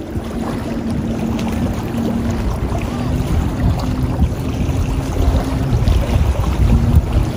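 Wind buffeting the microphone in a steady low rumble, with a faint steady low hum underneath that fades in and out.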